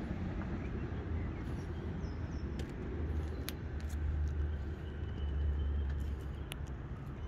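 A steady low rumble of outdoor background noise, with a few faint clicks and ticks scattered through it.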